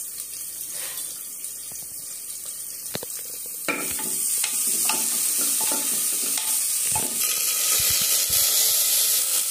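Sliced onions sizzling in hot oil in a pressure cooker as they are browned, the sizzle growing louder about four seconds in, with a few short clicks.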